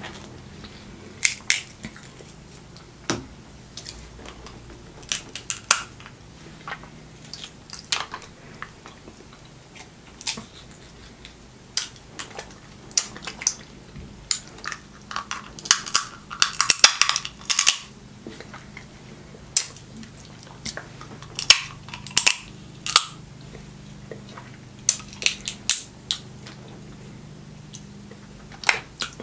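Snow crab leg shells cracking and snapping as they are broken apart by hand. There is a sharp crack every second or two, with a dense run of cracking about halfway through, and chewing between the cracks.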